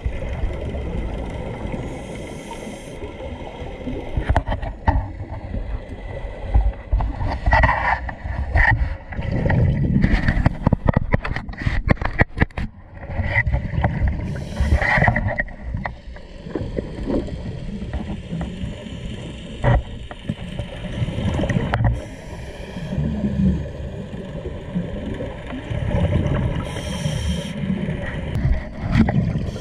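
Scuba diving heard through a camera in an underwater housing: a constant low rumble of water and handling noise, with repeated bursts of exhaled regulator bubbles and clusters of knocks on the housing.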